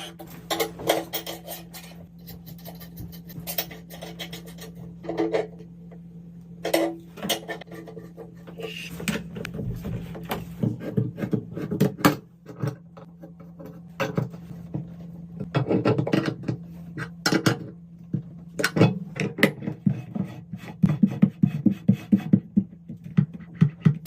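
Hard objects clinking, knocking and scraping in irregular handling sounds, coming thicker and faster in the last few seconds, over a steady low hum.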